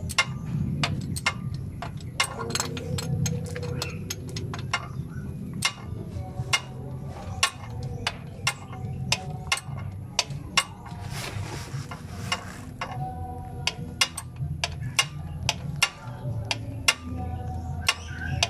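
A 3/8-inch-drive socket ratchet clicking as it is swung back and forth to tighten the transmission filler bolt. The clicks are sharp, metallic and irregular, about two a second.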